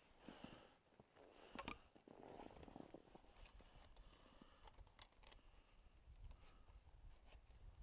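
Near silence: faint rustling and a few light clicks of handling, with a low rumble setting in about two seconds in.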